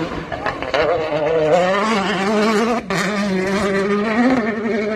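Hyundai WRC rally car's 1.6-litre turbocharged four-cylinder engine revving hard, heard from a distance. Its pitch climbs and wavers, with a short break about three seconds in.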